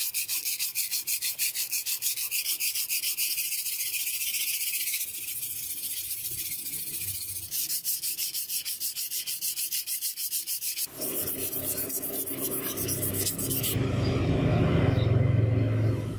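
Hand-sanding a steel axe head with a sanding block, in quick, even back-and-forth strokes of about three a second that give a gritty hiss. About eleven seconds in, the rubbing turns lower and fuller, loudest near the end.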